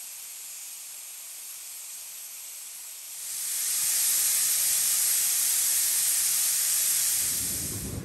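Shay geared steam locomotive releasing steam in a steady hiss, which swells much louder about three seconds in and eases off near the end.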